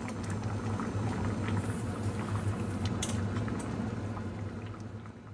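Dakbokkeumtang (spicy braised chicken stew) bubbling in an enamel pot on a gas burner, a dense crackling simmer over a steady low hum, with a few light ticks about three seconds in.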